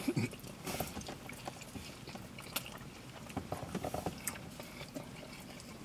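Biting into and chewing a chicken burrito: quiet, irregular small clicks and mouth smacks.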